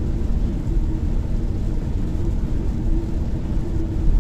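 Car cabin noise while driving at motorway speed on a wet road: a steady low rumble of tyres and engine with a faint steady hum.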